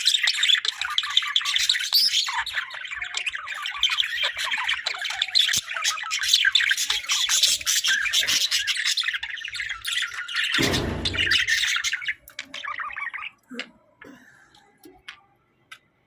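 Budgerigars chattering and warbling in a dense, rapid stream of chirps and squawks, which thins out after about twelve seconds to a few scattered chirps and clicks. A brief low rumble sounds about ten and a half seconds in.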